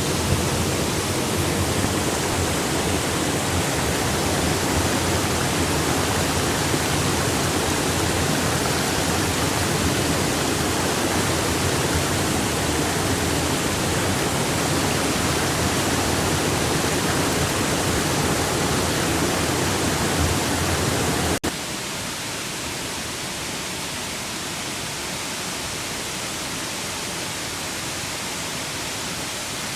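Steady rush of falling water. About three quarters of the way through it cuts suddenly to a quieter, thinner rush with less low rumble.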